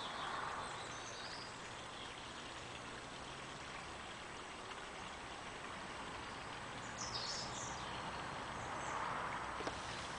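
Faint steady outdoor background noise, with a few faint high chirps about seven seconds in.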